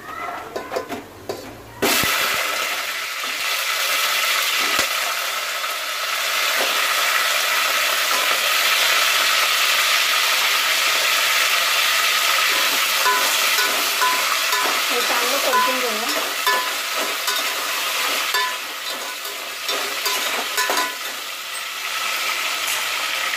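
Whole crabs tipped into hot oil and garlic in an aluminium pot, frying with a loud, steady sizzle that starts suddenly about two seconds in.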